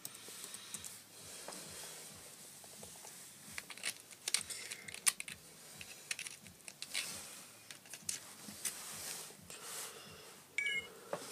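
Irregular clicks and taps of fingers typing on a MacBook keyboard and clicking its trackpad, with a brief high tone near the end.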